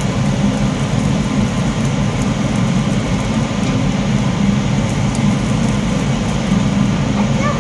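Steady, loud, low mechanical rumble with a rushing hiss above it, holding unchanged throughout.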